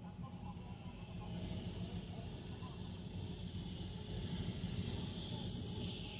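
TIG (GTAW) welding arc on stainless steel pipe: a steady hiss that comes in about a second in and grows louder toward the end, over a low hum.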